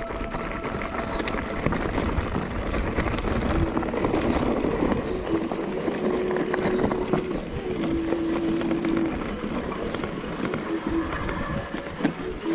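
Electric mountain bike's motor whining in short steady stretches that cut in and out under pedal assist, over a continuous rattle and crunch of the tyres on rough, stony track.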